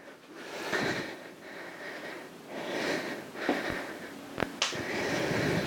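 A woman breathing hard in and out during a dumbbell lunge-and-curl exercise, with a breath about every second and a half. Two short knocks sound in the second half.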